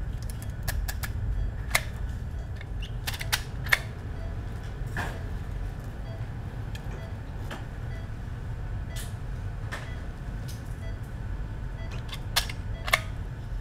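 Sorbafix absorbable hernia tacker being fired to fix the mesh into the fascia: sharp single clicks at irregular intervals, about a dozen, over a steady low hum.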